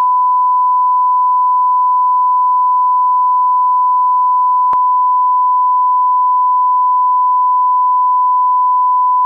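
Steady 1 kHz line-up tone, the test tone that goes with colour bars to set audio levels, held at one pitch throughout. A faint tick comes about halfway through.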